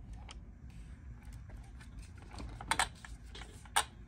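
Quiet handling noise: a few light, sharp clicks and taps, two close together about two and a half seconds in and one more near the end, over a low rumble.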